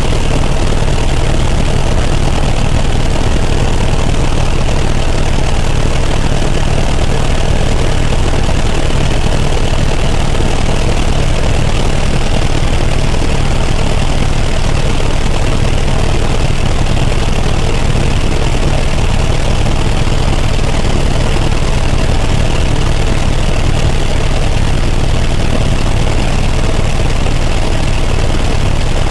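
Helicopter in flight, its rotor and engine giving a loud, steady drone that is strongest in the low end and holds unchanged throughout.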